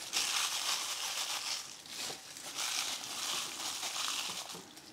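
Paper towels rustling and a disposable plastic glove crinkling as marinated chicken wings are laid onto the paper, in a few bursts of crinkly noise.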